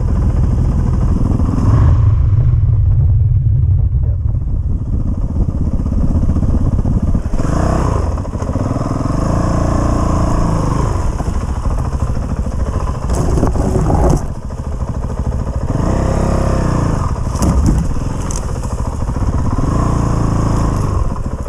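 Honda CRF450RL single-cylinder dirt bike engine running close to the microphone, revving up and falling back several times while riding a wooded trail. A few sharp knocks and rattles from the bike over the ground come through about two-thirds of the way in.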